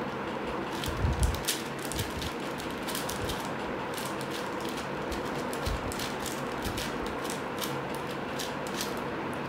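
Plastic clicking and clacking of a 4x4 Rubik's cube's layers being turned by hand: many quick, irregular clicks over a faint steady hum.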